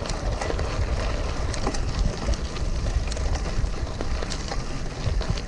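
Bicycle rolling with a low wind rumble on the microphone and an irregular crackling and ticking from the wheel, which has picked up soft tar that is catching on the bike.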